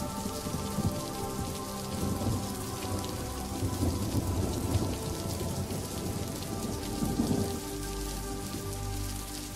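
Underwater rush and rumble of waves breaking over a shallow rocky reef, with the fizzing crackle of churned bubbles. The rumble swells and fades in repeated surges.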